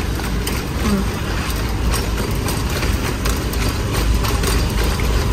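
Airport luggage trolley being pushed along, its wheels and wire frame rattling and clattering in quick irregular clicks over a steady low rumble.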